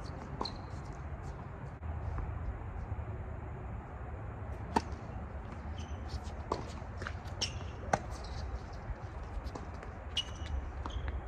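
Tennis ball struck by rackets and bouncing on a hard court during a rally: a series of sharp pops a second or two apart, over a steady low rumble.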